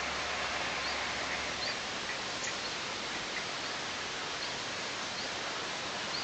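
Steady rushing hiss from the nest-camera microphone, with faint, short, high rising chirps of small birds every second or so.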